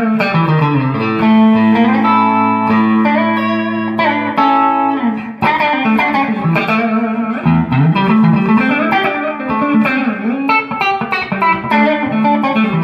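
Stratocaster-style electric guitar played clean on its middle pickup position, through a Fender 40-watt twin amp with an EQ/boost pedal. A mix of picked chords and single-note lines, with low notes left ringing under the higher ones.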